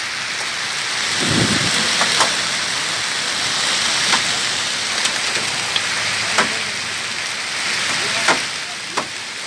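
Heavy rain mixed with hail pouring onto the road, a dense steady hiss with scattered sharp knocks of hailstones striking close by. A brief low rumble about a second in.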